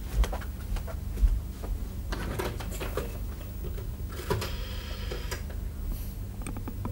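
A scattered series of light clicks and knocks over a steady low hum, with a brief high tone about four and a half seconds in.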